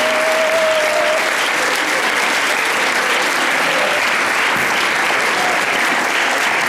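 Audience applauding steadily, with one held cry from the crowd in the first second.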